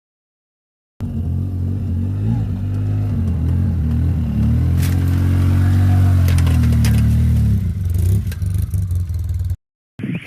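A motor vehicle's engine running, its pitch rising and then falling as it revs, with clattering and rattling over it; it cuts off suddenly near the end.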